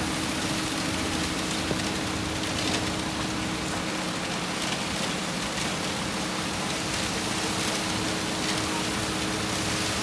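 Concrete mixer truck running steadily, a constant engine hum under an even rushing noise, with a few faint ticks from tools on the concrete.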